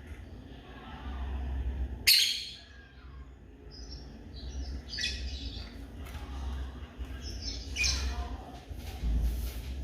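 Lovebirds calling: a few shrill chirps and squawks a few seconds apart, the loudest about two seconds in, with fainter chirps between, over a low rumble.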